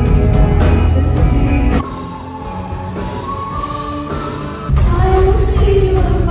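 Live rock concert music played through a venue PA, heavy in the bass: a female singer with her band. A loud drum-driven passage cuts off abruptly about two seconds in to a quieter sung passage, and loud full-band music cuts back in about five seconds in.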